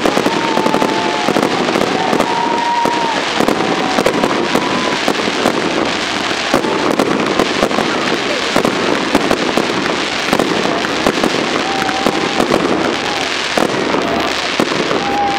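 A fireworks display crackling and popping without a break: dense, rapid small bursts from clusters of crackling stars.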